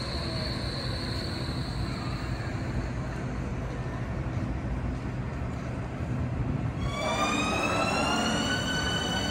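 A Berlin tram's steady running rumble with a faint high tone that fades out. About seven seconds in, a Berlin S-Bahn electric train's traction motors whine, rising in pitch as the train gathers speed and then holding steady.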